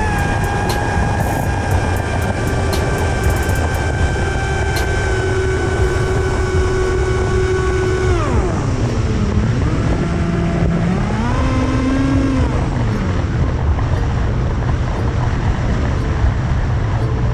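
Electric motor and propeller of an FPV flying wing whining steadily over heavy wind rumble on the onboard camera. About eight seconds in the whine drops sharply in pitch, rises again briefly, then fades away, leaving only the wind rumble.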